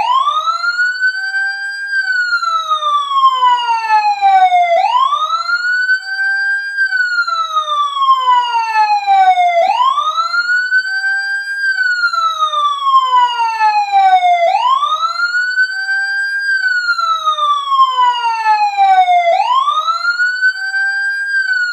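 Siren-style ringtone: a clean wailing tone that rises quickly, then falls slowly, repeating about every five seconds.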